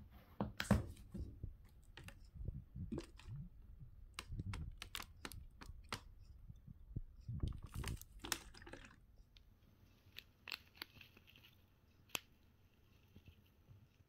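Clicks and knocks of a soy sauce bottle being handled on the table, then the crinkling and tearing of a small plastic packet of bonito flakes being opened and shaken out.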